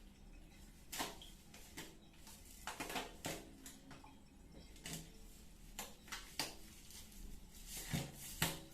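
Faint, scattered clicks, knocks and rustles of small objects being handled, with a few sharper ticks about a second in, around three seconds in and near the end.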